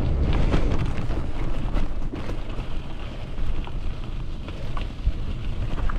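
Bicycle tyres rolling over loose gravel and leaf-covered dirt, with scattered small crunches and pops, under a low wind rumble on the camera microphone.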